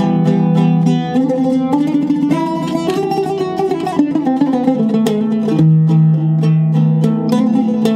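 Solo oud played with a plectrum: a melodic line of plucked notes, with stretches of fast repeated picking that sustain low notes, notably from a little past the middle. The oud has a cedar soundboard and a maple-and-wenge bowl, strung with Kröschner strings.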